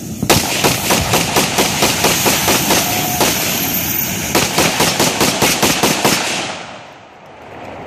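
Rapid gunfire: a fast string of sharp shots at about five a second, keeping up for around six seconds and then stopping.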